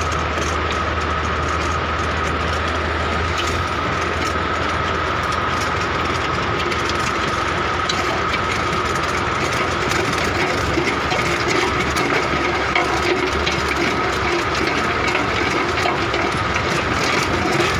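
Massey tractor running steadily under load, driving a PTO post hole digger auger that is boring into hard, stony soil. A steady whine sits over the engine and grinding, with scattered clicks and knocks that grow a little louder about halfway through.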